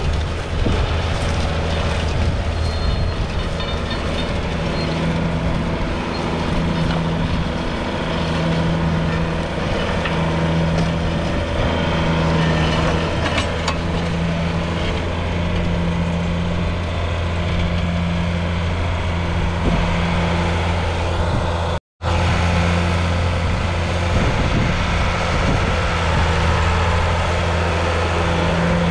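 1982 John Deere 4040's 5.9-litre six-cylinder diesel engine running steadily under load, pulling a four-furrow reversible plough, with a slow throb that swells about every two seconds. The sound cuts out for an instant about two-thirds of the way through.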